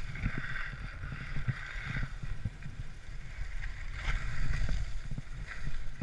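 Skis scraping over icy, hard-packed snow, a hiss that comes and goes with each turn, with wind rumbling on the microphone.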